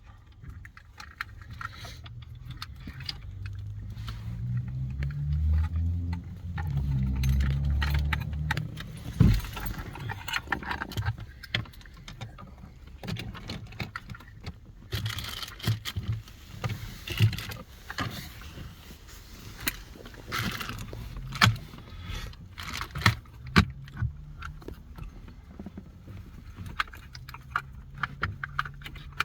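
Repeated clicks, knocks and short rattles of small hard parts being handled, with a low rumble about four to nine seconds in.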